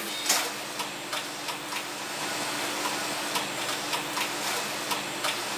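Factory machinery running with a steady hum, overlaid by irregular sharp clicks and ticks, about two or three a second.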